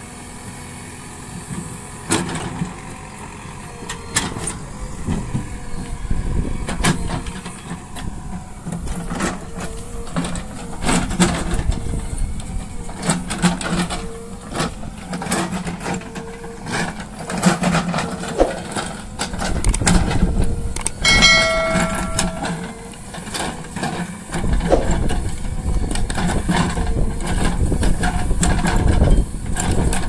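JCB 3DX backhoe loader's diesel engine running under load while the backhoe digs, with repeated knocks and scrapes from the bucket and arm working the soil. A brief pitched tone sounds about two-thirds of the way through.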